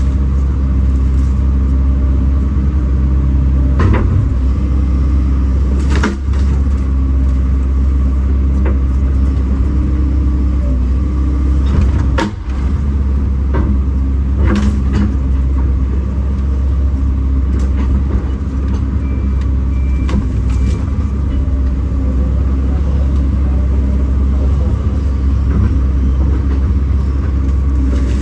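Kobelco SK210 excavator's diesel engine running steadily as the machine works, with several sharp knocks or cracks scattered through, the loudest about halfway.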